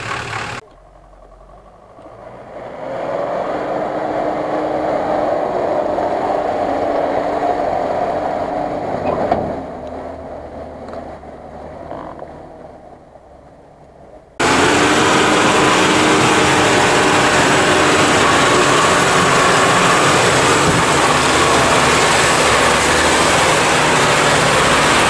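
Off-road vehicle engines working through deep mud, with sudden jumps in loudness where the footage cuts. The first half builds as an engine revs up a couple of seconds in. From just past the middle, a loud, steady engine sound comes from beside a GAZ-66 army truck's mud-caked wheels.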